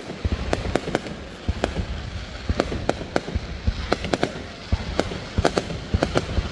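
Aerial fireworks display going off: a rapid, irregular string of sharp bangs and cracks, several a second, over a continuous low rumble of more distant bursts.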